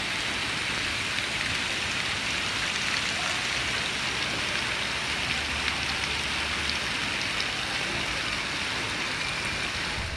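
Steady hiss of running and spraying water in a water-park splash pool, water pouring down a plastic slide and pattering on the pool's surface.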